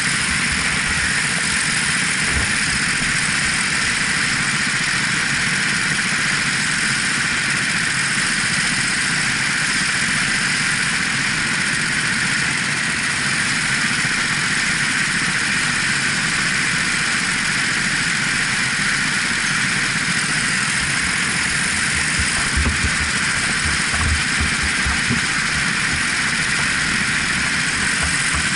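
Racing kart engine running steadily, mixed with heavy wind rush on a helmet-mounted microphone, with a few low thumps about three-quarters of the way through.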